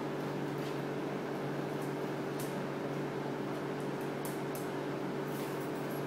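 Steady mechanical hum of a household appliance, with a few faint scratches and clicks as a double yellow-headed Amazon parrot grips and climbs a plastic hoop and cardboard toy.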